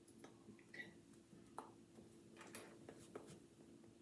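Near silence: a faint steady room hum with a few soft clicks and taps.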